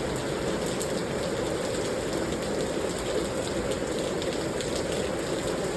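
Heavy rain coming down a lot, a steady, even rush with faint scattered ticks of drops.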